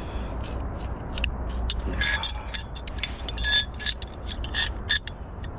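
Rapid light metallic clicks, clinks and scrapes as the steel profile clamps are handled and their screw adjusters loosened off, a few clinks ringing briefly.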